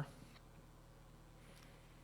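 Near silence: a pause in speech with faint room tone and a low steady hum.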